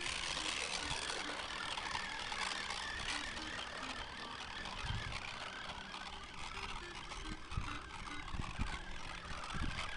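Radio-controlled scale truck ploughing through muddy water: a steady rush of splashing and churning from its wheels with the motor running, and a few low thumps in the second half.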